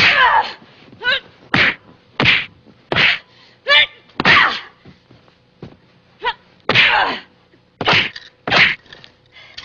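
A scuffle heard as a string of short, loud shrieks and smacks, roughly one every half second to second, with a pause about five seconds in.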